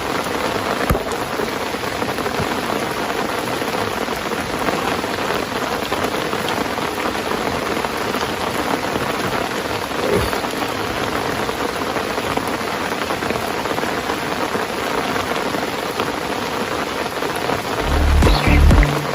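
Steady rain falling, an even hiss with a few separate drop clicks. Music with a heavy low beat comes in near the end.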